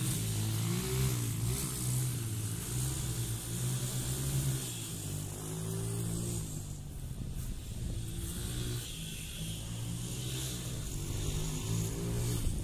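Pit bike engine running as the bike laps a dirt track, its note rising and falling with the throttle.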